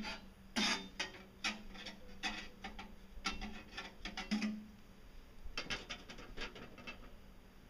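A machete chopping down onto a wooden stump: a series of separate sharp chops, some with a short ringing tail, then a quicker run of lighter strikes about six seconds in.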